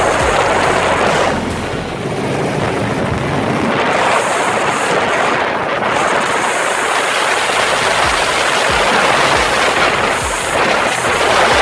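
Helicopter noise heard from aboard in flight: a loud, steady rush of engine, rotor and wind, with a faint low thudding from the rotor.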